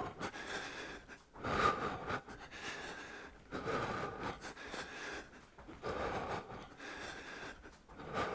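A man breathing hard and audibly while hopping in place during a warm-up, long breaths coming about every two seconds.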